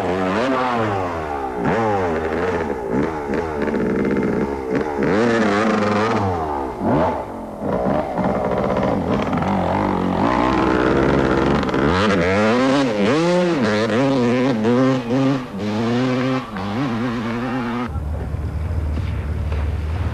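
Yamaha off-road racing motorcycle engine revving up and falling back again and again as it is ridden hard through a river crossing and up a rough bank, with water splashing. Near the end a deeper, steadier engine drone takes over as a rally 4x4 pushes through the water.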